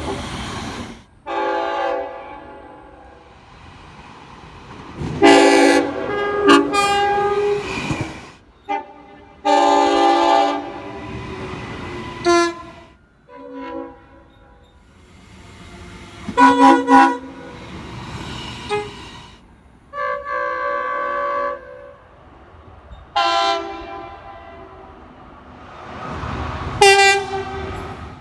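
Locomotive horns sounding about nine blasts, some short and some held for two to three seconds, with the chord changing from blast to blast as different horns follow one another.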